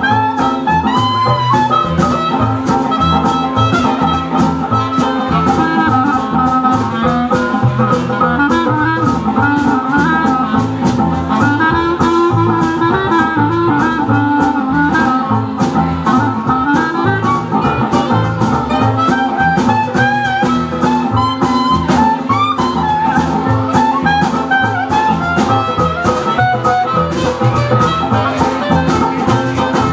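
Swing jazz band playing live, instrumental: clarinet and brass lines over upright double bass and a strummed rhythm instrument keeping a steady beat.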